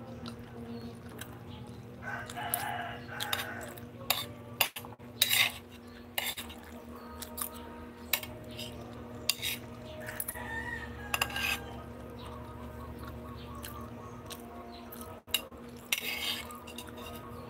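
A metal spoon clinking and scraping on a ceramic plate, a string of sharp irregular clicks, over a steady low hum. A longer drawn-out sound comes about two seconds in.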